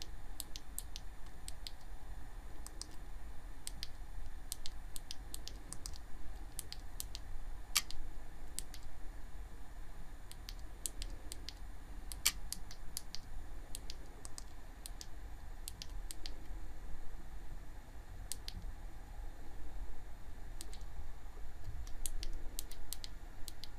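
Irregular small clicks of buttons being pressed to step through a camera's on-screen settings menu, some in quick pairs, over a steady low hum.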